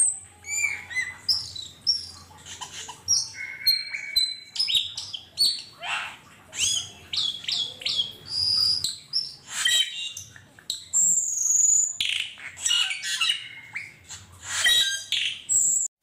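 A flock of cucak keling (Asian glossy starlings) calling together: a busy, overlapping chatter of short whistles, squeaky chirps and rising and falling notes.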